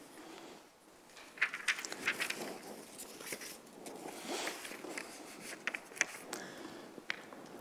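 Sheets of paper rustling and being shuffled at a lectern, with irregular small crackles and taps.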